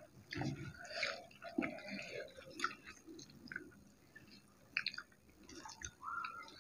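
Quiet, irregular chewing of rice and curry, with soft squishes as the rice and gravy are mixed by hand on the plates.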